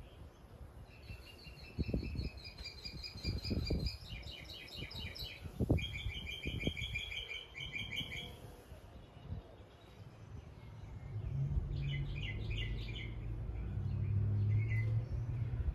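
Small birds chirping in quick repeated trills, with a few low thumps in the first half. A low vehicle rumble builds in the last few seconds.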